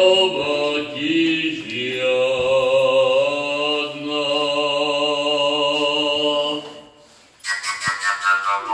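Fujara, the long Slovak overtone flute, playing slow, long held notes rich in overtones. Near the end the tone stops briefly, then a new phrase starts high and falls away.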